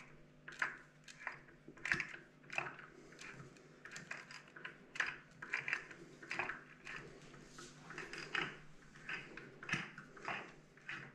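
Irregular light metallic clicks and clinks of hands working on a Minarelli horizontal scooter engine and handling tools, one or two a second, over a faint steady hum.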